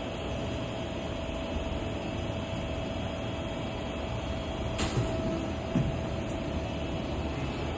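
AWEA LP4021YZ double-column vertical machining center running with its spindle at around 1900 rpm, near its 2000 rpm top speed: a steady machine hum with a steady whine through it. A sharp click about five seconds in and a couple of softer knocks just after.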